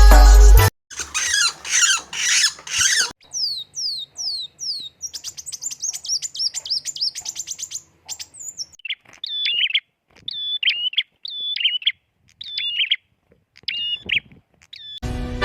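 Small songbirds' calls in a run of distinct passages that change abruptly: a busy warbling song, then a series of quick falling whistles, then a fast high trill, then a repeated short chirping phrase with pauses between.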